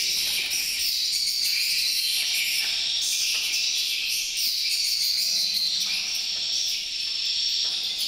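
Dense, steady high-pitched chirping and twittering of many edible-nest swiftlets in a swiftlet house.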